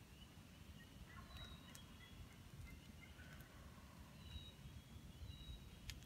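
Distant wild turkey gobblers gobbling faintly from the roost, several times.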